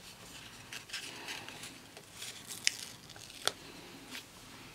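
Paper stickers being peeled from their backing sheet and pressed onto a paper planner page: soft paper rustling with scattered small clicks and two sharper ticks in the second half.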